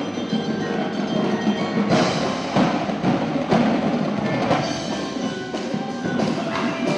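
Drumline playing: marching snare, tenor and bass drums striking together with the front ensemble's marimbas, xylophones and chimes ringing pitched notes.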